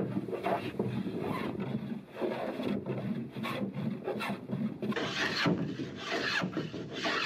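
Hand tool scraping and shaving the wooden deck of a canoe in quick, repeated strokes, about three a second, the strokes growing a little longer and stronger after about five seconds.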